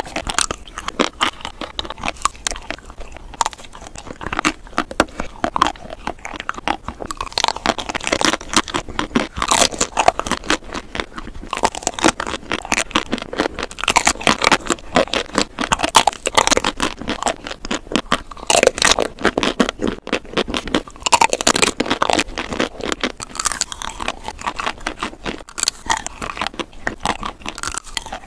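Close-up sounds of biting and chewing chocolate-coated ice cream, the hard chocolate shell cracking and crunching in many quick, sharp bites.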